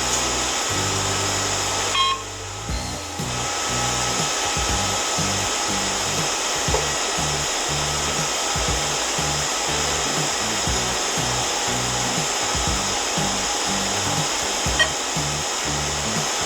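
Steady blowing hiss from an air blower, under background music with a pulsing bass line.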